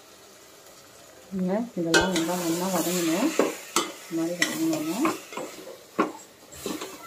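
Metal ladle stirring and scraping mutton and masala in a stainless steel pot, with sharp clinks against the pot. From about a second in, a loud pitched squeal is held twice, first for about two seconds and then for about one, each gliding upward as it ends.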